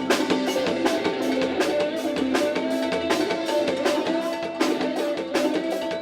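Upbeat music with a steady, fast drum-kit beat under a melody line.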